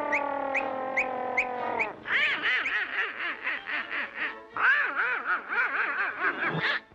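Donald Duck's squawking, quacking cartoon voice chattering in choppy bursts, starting about two seconds in after a held, slowly sinking tone with a regular ticking stops.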